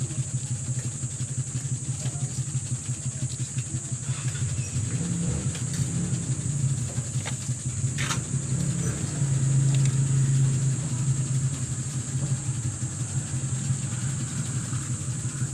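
A motor engine running steadily, louder for a couple of seconds around the middle, with a constant high whine above it and one sharp click about eight seconds in.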